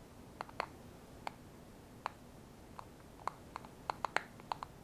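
Small, sharp, irregular clicks and ticks of a small screwdriver and plastic parts working inside a Powerball gyroscope's plastic housing during reassembly, bunching together near the end.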